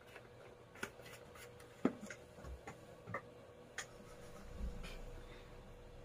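Faint, scattered light clicks and taps of handling on a workbench, about one a second, with a low rumble about four and a half seconds in.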